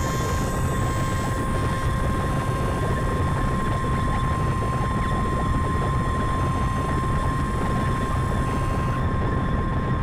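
Noisy ambient synthesizer drone from a Moog Grandmother and Eurorack modules: a dense low rumble of noise under a steady high tone. The upper hiss thins out about nine seconds in.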